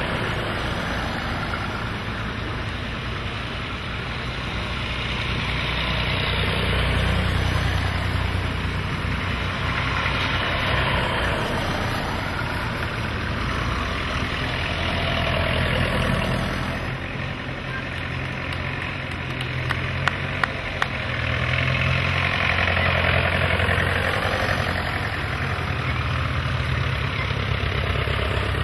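Engines of vintage farm tractors passing one after another in a procession, the sound swelling and fading as each goes by. Three sharp clicks a little past the middle.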